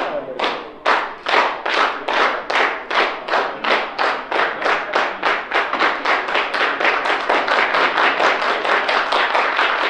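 An audience clapping in unison: a steady beat of about three claps a second that quickens slightly toward the end.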